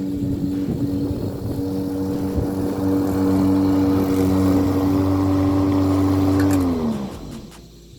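Dewalt 20V cordless self-propelled lawn mower running with a steady electric motor hum, then spinning down with a falling pitch about six and a half seconds in as the motor is switched off.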